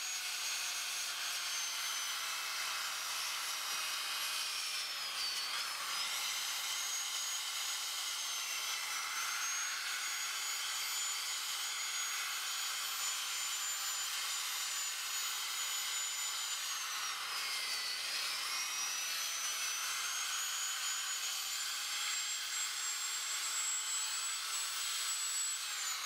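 Electric drill running at high speed with an abrasive sanding wheel rubbing over carved wood: a steady motor whine over the sanding hiss. The whine dips in pitch twice, about five seconds in and again about seventeen seconds in, and climbs back each time.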